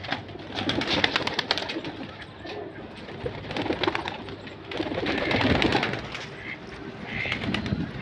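Domestic pigeons cooing, with a run of quick clicks and rustles about a second in.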